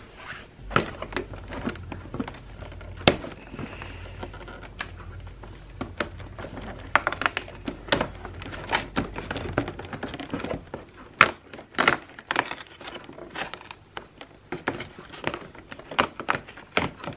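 Cardboard advent calendar being forced open by hand: many irregular knocks, thunks and scrapes of cardboard, with a low rumble through the first ten seconds or so.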